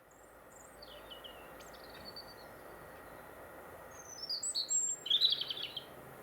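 Garden songbird singing outdoors: a few short, high whistled notes and chirps, then a louder run of phrases about four seconds in that ends in a quick trill, over a steady faint background hiss.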